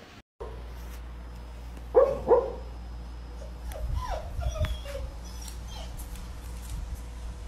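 A dog gives two short, loud barks about two seconds in, then several whining whimpers that slide down in pitch.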